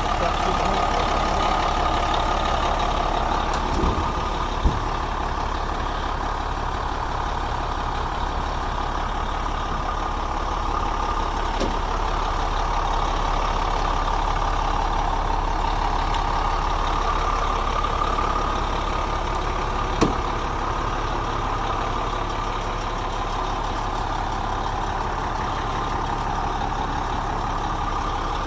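Truck engine idling steadily, with a few short sharp clicks, two about four to five seconds in and one about twenty seconds in.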